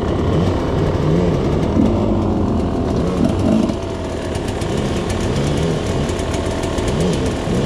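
Enduro dirt bike engines running at low speed, the pitch rising and falling again and again with the throttle, a little quieter after about four seconds.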